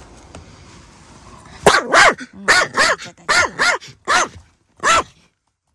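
A small dog barking, about eight short, sharp barks, mostly in pairs, starting about a second and a half in. The dog is fretting because its owner has left the car.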